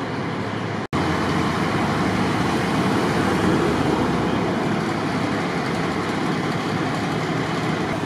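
Steady city street traffic noise, an even rumble and hiss of vehicles, cut off for an instant about a second in and resuming.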